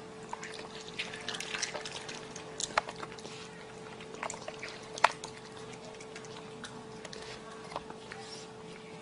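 Raccoon chewing grapes: wet smacking and crackling clicks, thickest in the first half with one sharp click about five seconds in, over a faint steady hum.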